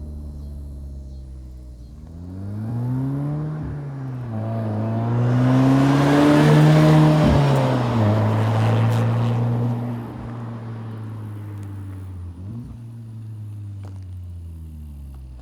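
VW Golf R's turbocharged 2.0-litre four-cylinder through an AWE SwitchPath cat-back exhaust, running steadily and then accelerating hard. The exhaust note rises twice, breaking sharply at the changes, and is loudest about six to seven seconds in. It then settles to a steady lower drone and fades near the end.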